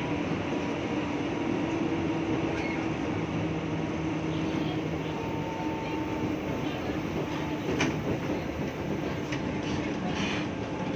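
KRL electric commuter train running: a steady rumble with a low hum and a few faint steady tones. There is a single sharp click a little before 8 s.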